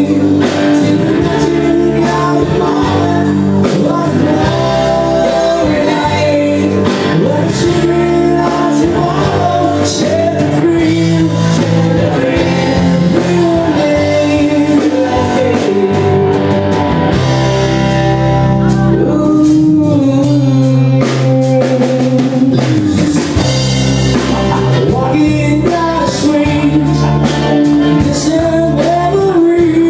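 Live rock band playing: a singer over electric guitars, bass guitar and drums, with steady drum and cymbal hits.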